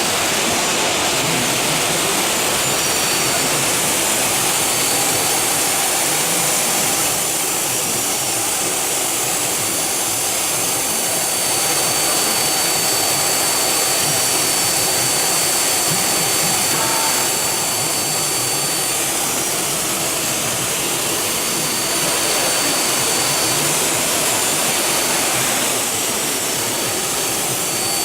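JGZFX4 4000 CNC machining centre for aluminium profiles running: a steady loud hiss with a thin high whine held over long stretches. The level dips slightly every few seconds.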